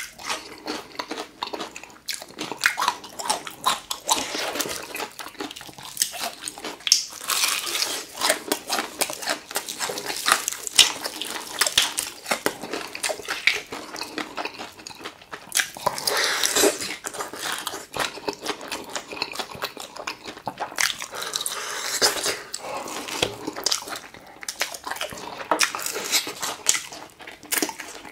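Close-miked chewing of crispy fried chicken and pickled radish: dense crackling crunches of the fried batter with wet mouth sounds, in a few louder bouts.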